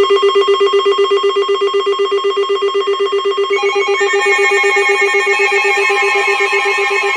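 Several NOAA weather radio receivers sound their alert alarms at once for a Severe Thunderstorm Warning. A loud, rapidly pulsing low alarm tone starts suddenly with steadier higher tones over it, and more alarm tones join in about three and a half seconds in as further radios go off.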